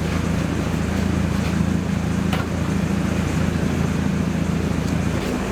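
A steady low mechanical hum, with its deepest part cutting off near the end.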